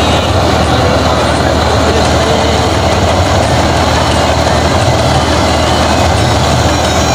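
Tractor engine running steadily under load, driving a thresher as it threshes pearl millet heads: a continuous, even drone of engine and threshing drum.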